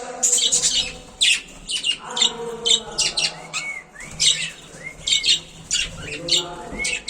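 A small group of budgerigars chattering: many quick, sharp chirps and squawks overlapping, with several short rising-and-falling calls and a softer warble underneath.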